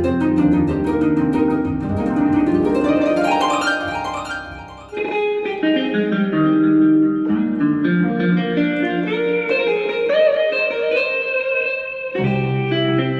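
Roland XPS-10 synthesizer keyboard playing plucked harp- and guitar-like tones. A quick upward run of notes about two seconds in is followed by a break and a new phrase near five seconds, and a new part with a held bass comes in near the end.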